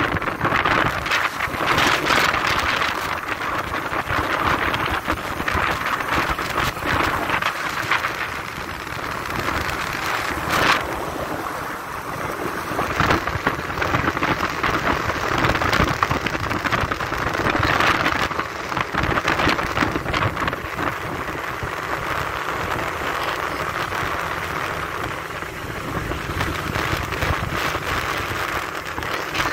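Wind rushing and buffeting over a phone's microphone on a moving motorcycle, a loud, gusting rumble with crackles that rises and falls irregularly.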